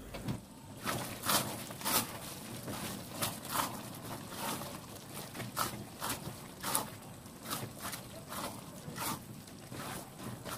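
Spatula scraping against a wok while stirring and scooping thick chicken-wing curry, in short uneven scrapes about once or twice a second.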